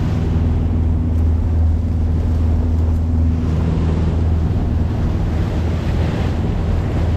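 A charter fishing boat's engine running steadily under way, a constant low drone, with wind buffeting the microphone and the rush of water along the hull.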